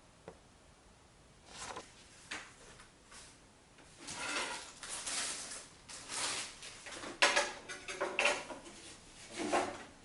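Thin sheet-metal parts of a lightweight fire pit being handled: a run of short scrapes and clinks, the sharpest click about seven seconds in.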